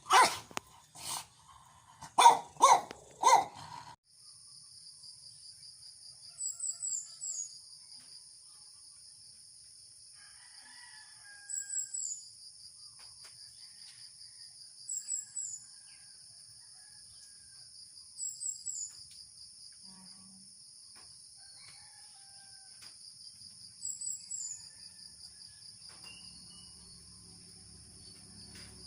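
A burst of loud animal calls in the first four seconds, then a steady high-pitched insect drone with short chirping trills every few seconds.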